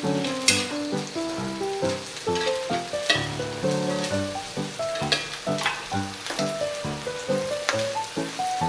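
Sliced bell peppers sizzling in a frying pan while they are stirred, with scattered knocks of the utensil against the pan. Background music, a melody of short notes, runs under it.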